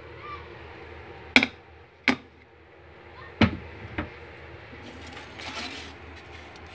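Four sharp knocks from kitchen work, the first three the loudest, followed a second later by a brief rustling hiss.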